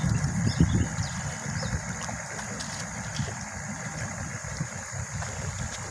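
Motor of a small river boat running steadily, its low rumble louder for the first second, with water and wind noise around it.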